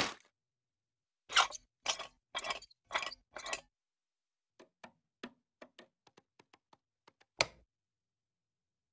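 Cartoon sound effects of changing a light bulb: five knocks from a wooden stepladder, then a run of faint light ticks as a bulb is screwed into a ceiling socket. A single sharper click near the end comes from a wall light switch turning the light on.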